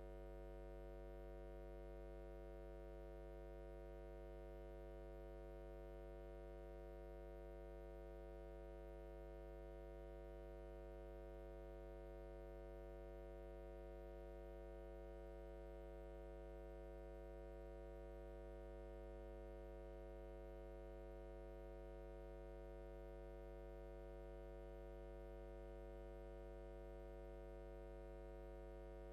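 Near silence with a faint, steady electrical hum made of several even tones. It does not change at all.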